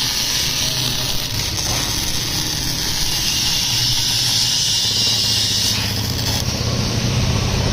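CO2-shielded MIG welding arc laying build-up weld on an SG iron gear, a steady hiss with a low hum under it; the arc stops about six seconds in.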